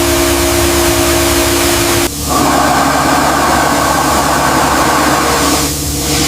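Pressure washer running and spraying: a steady motor hum under a loud hiss of water spray, whose pitch changes abruptly about two seconds in.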